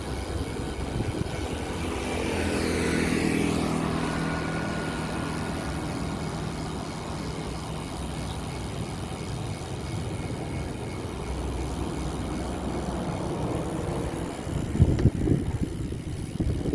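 An engine running steadily, swelling in loudness about three seconds in and then easing off.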